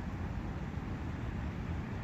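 Steady forest ambience of wind and a nearby brook: an even rushing noise, heaviest in the low rumble, with no distinct events.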